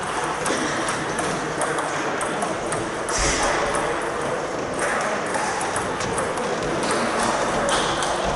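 Table tennis rally: the ball clicking sharply and irregularly off bats and tabletop, several hits every couple of seconds, over a steady hum of background hall noise.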